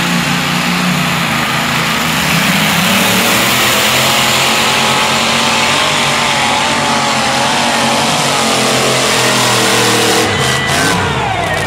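A pulling tractor's engine running hard at high revs, loud and continuous. Near the end the engine note falls in pitch.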